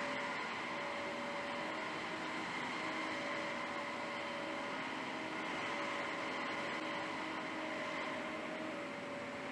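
Steady machinery hum and whir of a rubber washing line, an even rushing noise with faint humming tones that drop out and come back.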